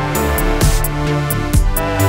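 Electronic background music with sustained synth notes, a bass line and a steady drum-machine beat, about two beats a second.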